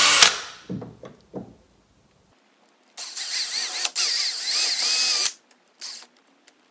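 Cordless drill boring screw holes through a hinge into the wooden door lining. It stops just after the start, then runs again for about two seconds with its whine rising and falling as the trigger is eased, and gives one short burst near the end.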